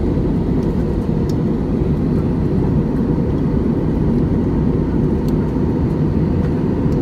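Steady cabin noise of a jet airliner in flight: a dense low rumble of engines and airflow with a faint steady hum above it.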